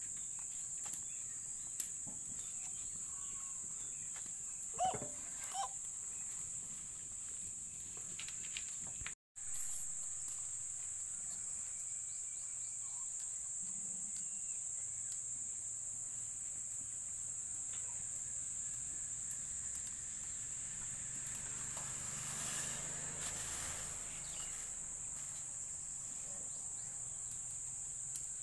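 Insects droning steadily at a high pitch, briefly cutting out about nine seconds in.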